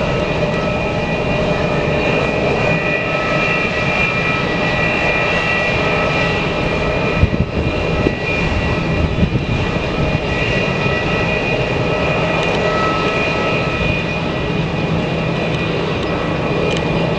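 Boeing 747-400 freighter's four turbofan engines running steadily: a continuous rumble with a whine of several held tones. A few brief knocks come about halfway through.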